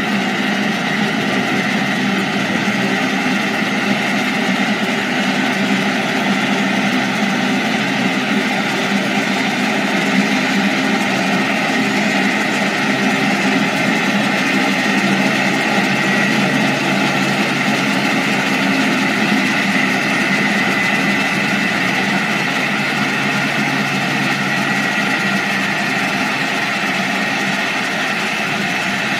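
1950s Budworth jet engine running steadily: a constant high whine over a broad rushing noise, with a low hum added about halfway through for roughly ten seconds.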